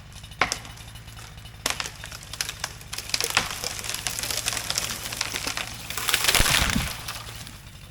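Wood cracking and splintering as a felled tree goes over: a few sharp snaps, then crackling that builds into a crash through branches with a heavy thud about six and a half seconds in.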